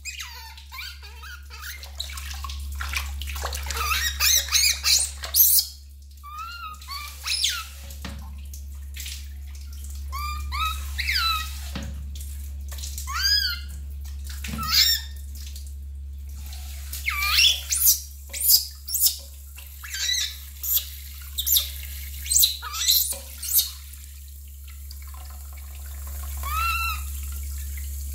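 A newborn baby monkey giving repeated short, high squeaks that rise and fall, in clusters, while water splashes around it in a metal bathing basin. Near the end a shower spray starts running into the basin.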